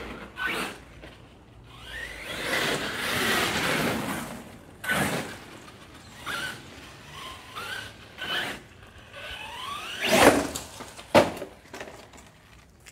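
HPI Savage XL Flux RC monster truck being driven hard on its new differential gears: its brushless motor whines up in short rising bursts, with tyre scuffing and a few sharp knocks, the loudest about ten seconds in.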